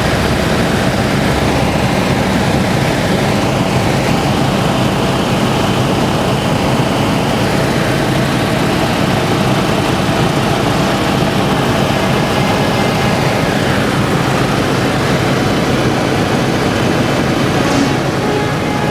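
Propeller aeroplane's engine and propeller running steadily in flight, a continuous even drone.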